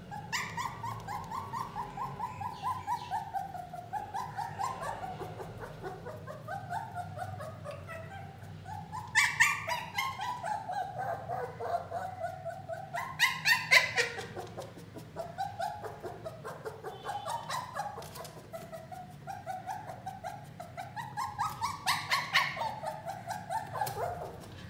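Puppy whining and yelping almost without pause, a fast string of high whimpering yips that rise and fall in pitch. There are louder, shriller outbursts about nine, thirteen and twenty-two seconds in.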